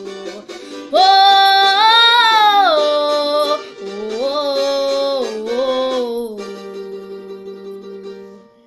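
A girl singing long, wordless held notes that bend up and down, the loudest a high sustained note about a second in, then the voice trails off and fades out near the end.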